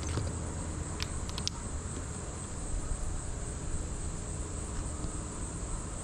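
Steady high-pitched insect chorus over a low rumble, with a few sharp clicks about a second in.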